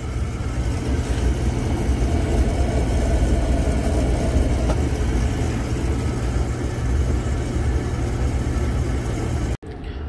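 Oil furnace's Beckett oil burner running steadily, a low hum with the even rush of the burner fan and flame, staying lit without faulting out. It cuts off suddenly near the end.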